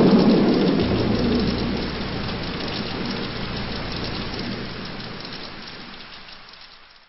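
Steady rain with a rolling rumble of thunder, loudest at the start, then fading out gradually toward the end.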